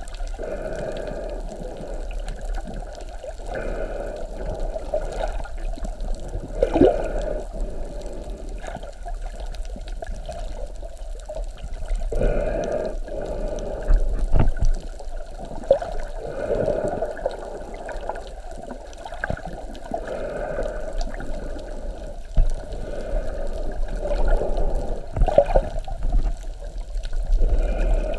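Water sloshing and trickling, heard muffled and dull, with irregular swells every few seconds.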